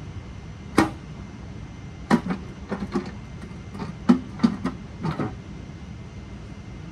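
Irregular sharp metallic clanks and knocks as the oil pan is worked loose and pulled off a Ford 302 V8 block: a single knock, then two short clusters of clanks.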